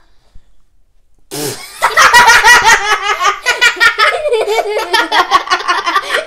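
Kids breaking into a long fit of high-pitched giggling about a second in, the laughter coming in quick repeated bursts.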